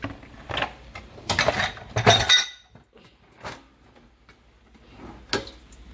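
Clean dishes and utensils clinking and clattering as they are handled in and taken out of a dishwasher rack: a few separate knocks, with the loudest clatter about two seconds in.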